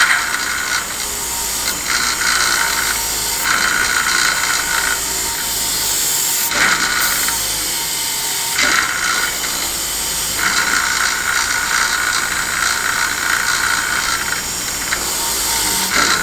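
A wire wheel running steadily on a grinder, with a knife blade pressed against it in repeated spells. The wire bristles scrape gunk, old sap and rust off the steel, and the scraping comes and goes over the motor.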